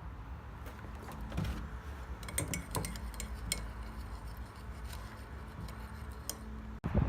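Light clinks of crockery and metal, a scattered handful of them, over a low steady hum.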